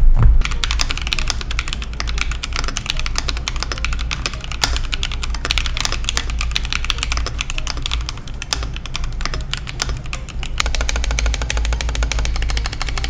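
Mechanical keyboard with Akko CS V2 switches being typed on quickly: a dense, continuous run of keystroke clacks, with a steady low hum beneath. The typing gets a little fuller near the end.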